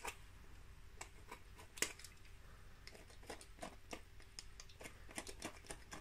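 Faint, irregular scrapes and clicks of a blade scraping the plastic end cap of a Dyson DC24 brushroll, cutting away where it has begun to melt, with a sharper click about two seconds in.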